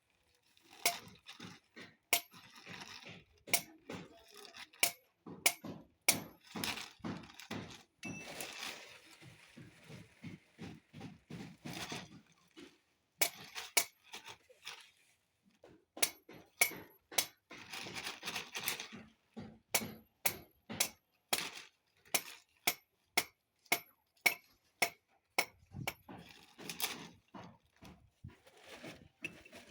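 Repeated sharp metallic knocks and clinks, irregular at about one to two a second, some leaving a brief high ring, like hammer blows on metal fittings. A few short scraping noises come between them.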